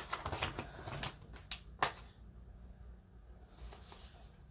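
A few short sharp clicks and light handling noises in the first two seconds, the loudest just before the two-second mark, then only faint room tone.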